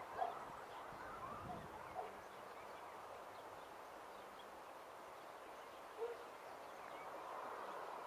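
A few short bird calls over a faint steady rumble from distant Boeing 737 jet engines, the rumble swelling a little near the end as the aircraft begins its take-off roll.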